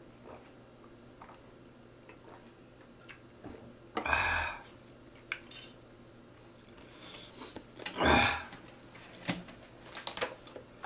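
Small clicks and knocks of a small plastic bottle and a book being handled on a wooden table, with two short, loud noises about four and eight seconds in.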